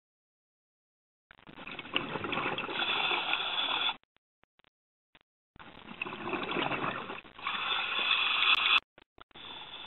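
Scuba diver's breathing through a regulator: exhaled bubbles rushing and gurgling past the camera in bursts of about three seconds, with silent pauses between breaths. Two full breaths, and a third begins near the end.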